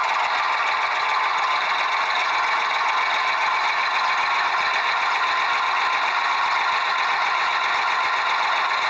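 Toy construction vehicle running: a steady, unbroken engine-like whirr with little bass and no change in pitch.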